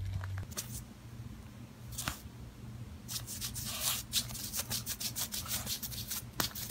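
Rustling and scratching on fabric bedding as a small dog scrambles and plays on a lap against a person's hands, in quick scratchy strokes that grow busier from about three seconds in.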